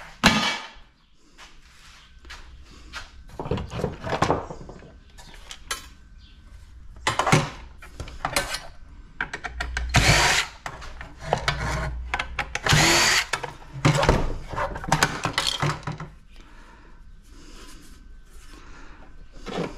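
Cordless drill running in short spurts, backing out the screws of a round waffle maker's plastic and stainless steel housing, mixed with knocks and clatter as the metal and plastic parts are handled and set down. A sharp, loud clatter just after the start as a waffle plate is dropped into a bucket.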